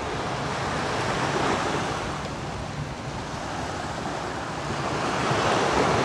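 Small waves washing onto a sandy beach, swelling twice, loudest near the end, with some wind rumble on the microphone.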